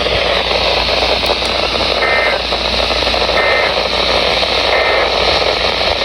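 Radio static: a steady hiss from a weather radio receiver on a weak signal, with three short faint beeps about a second and a half apart.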